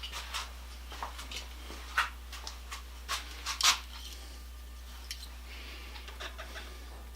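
Irregular light metallic taps and clicks, a few sharper ones around the middle, from tapping on a stuck washing machine motor part soaked with penetrating oil to free it.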